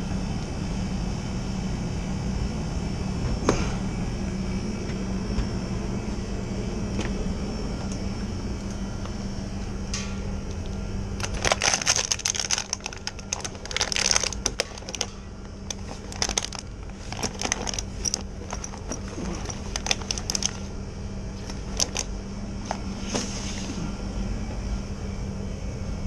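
Steady hum of a running refrigeration unit. From about halfway through comes a stretch of rustling and clattering as refrigerant hoses and tools are packed into a tool bag.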